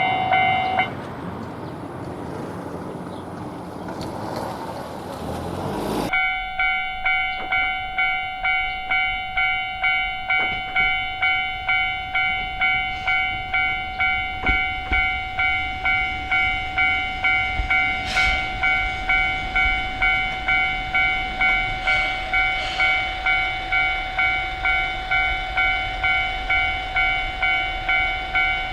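Japanese railroad crossing alarm ringing its electronic "kan-kan" bell, about two strikes a second. About a second in the bell stops and the rumble of a passing train fills several seconds; then the bell starts again abruptly and rings steadily.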